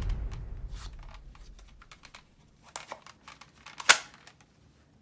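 Light plastic clicks and knocks of Nerf toy blasters being picked up and set down, the sharpest one about four seconds in. Background music fades out over the first second.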